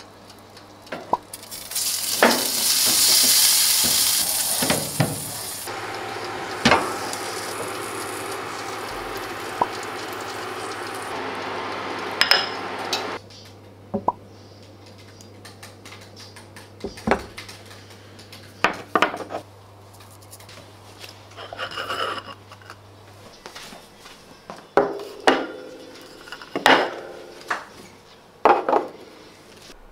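Steak sizzling loudly in a frying pan, the hiss dying down to a softer frying sound after a few seconds and stopping about halfway through. Then scattered clinks and knocks of plates, small sauce dishes and cutlery being handled and set down on a table.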